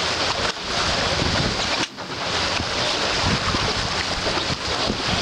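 Wind buffeting the microphone and water rushing past the hull of a racing catamaran under sail, a steady loud rush that briefly drops out twice.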